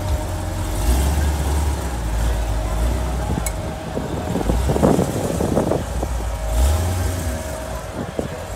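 A Chevrolet Corvette's V8 rumbling as the car rolls slowly past. The engine note swells about a second in and again near seven seconds.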